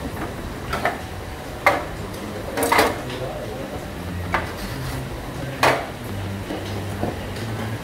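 Hard acrylic filter parts clacking and knocking as they are handled and set down, about five sharp knocks a second or so apart.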